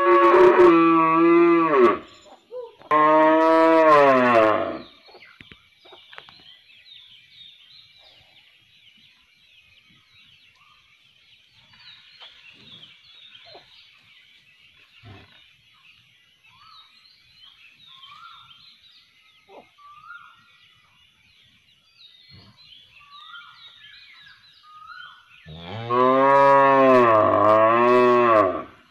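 Cow mooing: two moos in quick succession, then after a long pause a third moo near the end, its pitch wavering.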